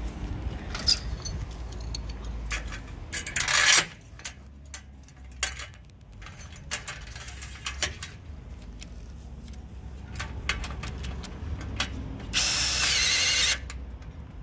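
Cordless drill driving in the screw that fixes an aluminium solar-panel clamp to its rail, running steadily for about a second near the end. Before that, light clicks and knocks of the clamp being fitted and handled against the rail and panel frame, with a brief louder rush of noise about three and a half seconds in.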